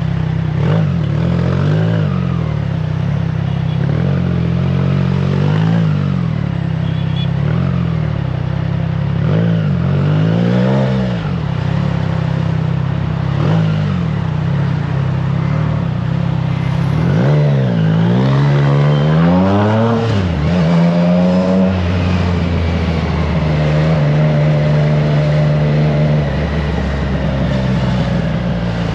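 Triumph Trident 660's inline three-cylinder engine through a FireTong aftermarket exhaust, ridden on the road: the engine note rises and falls several times with throttle and gear changes, the biggest swing a little past halfway, then holds a steady pitch at cruise. Wind noise on the microphone runs under it.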